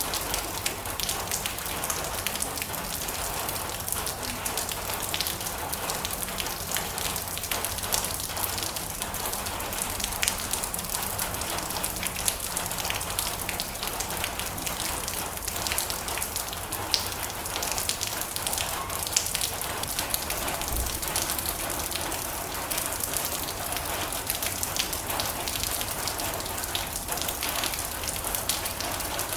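Steady rain on a metal roof, a continuous hiss with many sharp individual drop ticks.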